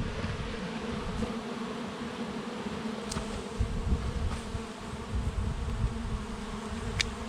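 A swarm of honey bees buzzing, a steady hum of many wings with a low rumble underneath. Two sharp clicks are heard, about three seconds in and near the end.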